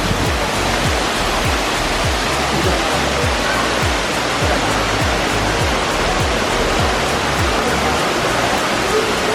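Background music with a steady thudding beat, over a loud, even rush of falling water.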